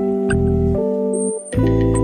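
Soft instrumental background music with sustained keyboard chords and a gentle melody, changing chord about every half second.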